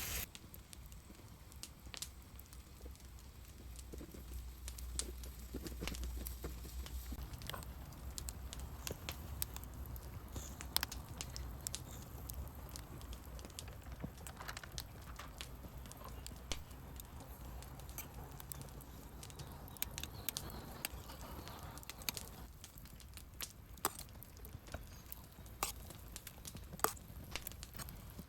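Wood campfire crackling, with sharp pops scattered irregularly throughout, over a low wind rumble that is strongest in the first several seconds.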